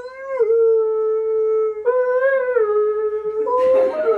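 A voice howling in long, drawn-out held notes, one after another, each bending up and then settling. About three and a half seconds in, a second howling voice and noisier sounds join in.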